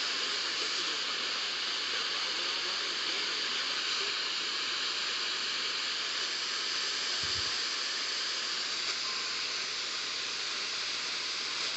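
Steady static hiss from a radio receiver tuned to a weak weather-radio signal, even and unbroken.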